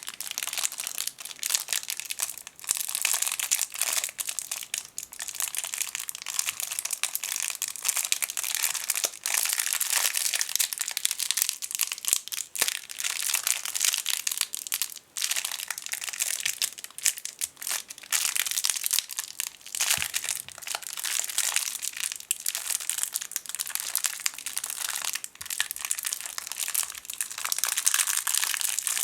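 A tiny plastic bag around a contact lens case is being crinkled and squeezed close to the microphone, making a continuous dense crackle with many small sharp clicks.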